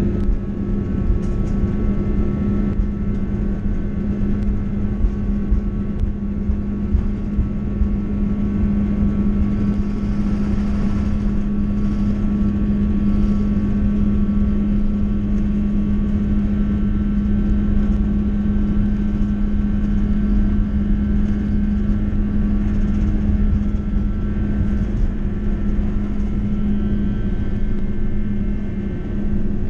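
Airbus A330-200 heard from inside the cabin while taxiing: the jet engines run at a low, even setting as a steady hum, over a rough low rumble.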